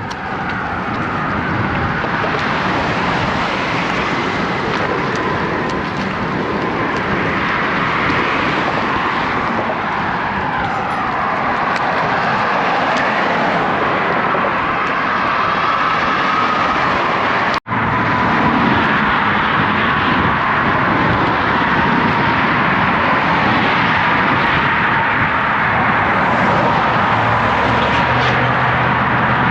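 Steady rush of strong headwind over a road bike's action-camera microphone, mixed with traffic passing on a highway. The sound drops out for an instant about two-thirds of the way through.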